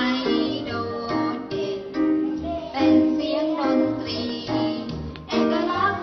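Thai children's song about the tone marks: a child's voice singing a melody over a backing track with a steady bass beat.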